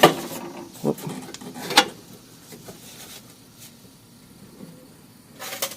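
Metal exhaust hardware clinking and knocking as it is handled: a few sharp clanks about a second apart, then a short rattle near the end.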